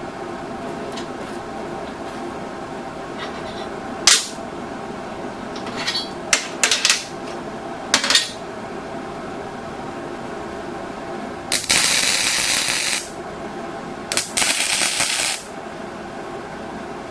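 Metal tools and steel tubing clanking several times against each other, over a steady machine hum, followed by two short hissing bursts of about a second and a half and a second.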